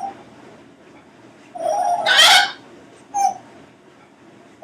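Congo African grey parrot vocalizing: one loud call about a second and a half in that turns harsh and noisy, then a short call about three seconds in.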